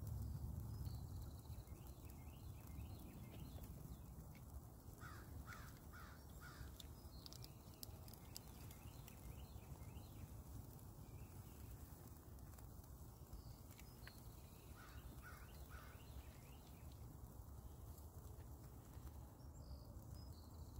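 Quiet outdoor ambience: birds calling, with two runs of three or four short, harsh repeated calls about five and fifteen seconds in, and scattered small chirps over a faint low steady rumble.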